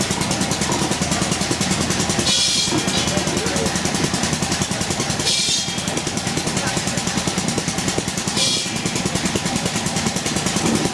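Steam traction engine running as it drives slowly by, with music and voices mixed in over it. Short hissing bursts come about every three seconds.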